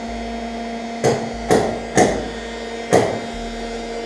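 A heat gun (hot-air gun) running steadily with an even hum, heating the inside of a plastic car bumper to soften it. Four sharp knocks come over it about a second in, then at roughly half-second gaps, and one more near the end.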